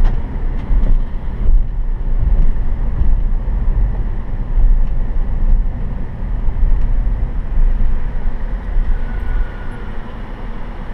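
Low, steady rumble of a car driving on pavement: engine and road noise, easing a little near the end.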